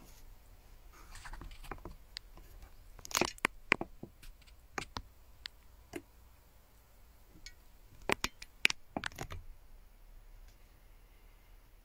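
Close handling noise: scattered clicks, taps and crackles in two short flurries, about three seconds in and again about eight seconds in, with a soft rustle before the first.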